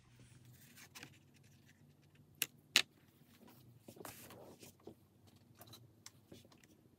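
Handling noises of a plastic ruler and paper: two sharp clicks about two and a half seconds in, then a brief rustle and a few light taps as the ruler is laid on the sheet.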